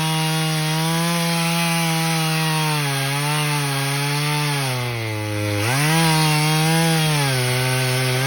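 Craftsman 18-inch chainsaw cutting through a hard, 10-to-12-inch fallen hardwood log. The engine note wavers and sags under the load, drops lowest about five seconds in, then picks back up.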